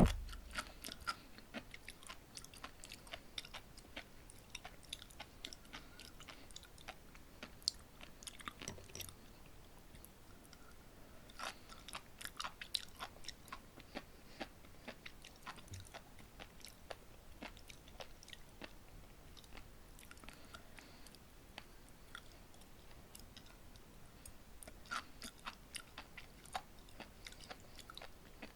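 Close-miked chewing of sea grapes, the small seaweed beads bursting in quick crackly clicks that come in clusters with quieter pauses between. A single sharp knock right at the start is the loudest sound.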